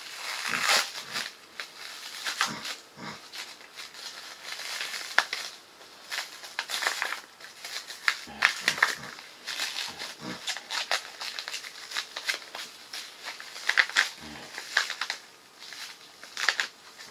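Plastic bags and food packaging crinkling and rustling in irregular bursts as groceries are handled.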